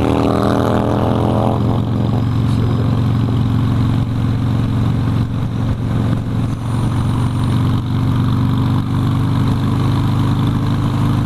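Harley-Davidson Sportster's V-twin engine running steadily as the motorcycle is ridden, heard from the rider's seat, with a brief higher-pitched engine note in the first couple of seconds.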